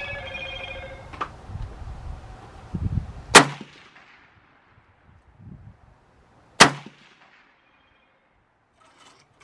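Two rifle shots about three seconds apart, each a sharp loud crack with a short echoing tail.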